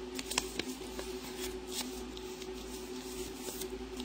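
Folded paper being handled and rustled, with scattered light ticks, over a faint steady hum.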